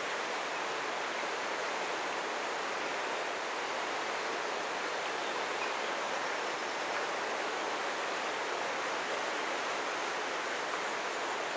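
A steady rushing of running water, even and unbroken.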